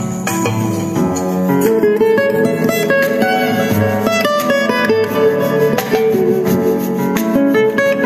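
Plucked guitar music played through a small two-way bookshelf speaker driven by a DIY class D amplifier with IRFP250 MOSFET output stages, as a sound test of the amplifier.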